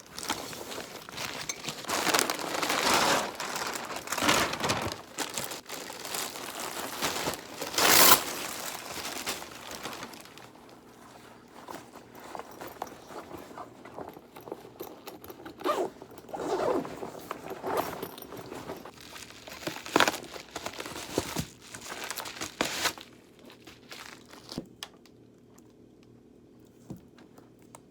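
Irregular rustling and crinkling handling noise, dense for the first ten seconds, then sparser, and fading out near the end.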